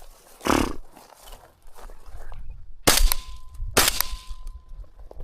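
Two shotgun shots about a second apart, fired at quail. A brief noisy burst comes about half a second in, and a thin steady tone runs through and after the shots.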